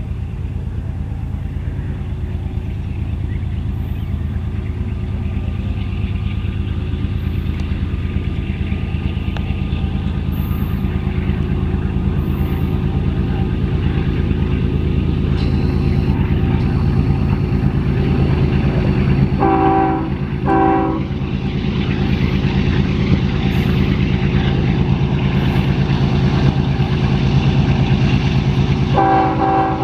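Two GE diesel freight locomotives, an ES44AC and an ES45AH, hauling a train, their engines a steady low drone that grows louder as they approach. About twenty seconds in the horn sounds two short blasts, and it sounds again near the end.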